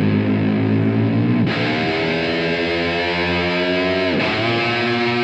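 Distorted electric guitar, a Kiesel SCB7 with a Floyd Rose floating bridge, playing the whammy-bar 'dirt bike' trick: one sustained note imitating a revving motorbike. Its pitch creeps upward, with a quick dip and return about a second and a half in and again near four seconds, like gear changes.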